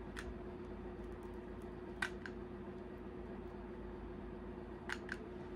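A few light plastic clicks and taps from a powder compact and makeup brush being handled: one just after the start, then a close pair about two seconds in and another about five seconds in, over a steady low hum.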